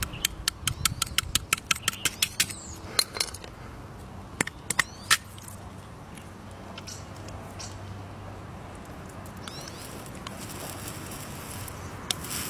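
Knife point tapping and chipping at the ice shell of a frozen water balloon: a quick run of sharp clicks over the first two and a half seconds, then a few scattered taps.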